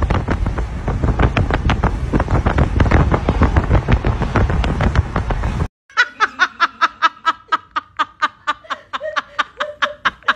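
Wind buffeting and road noise from a car moving with its window open. After a sudden cut, about five and a half seconds in, a person laughs in rapid, rhythmic bursts.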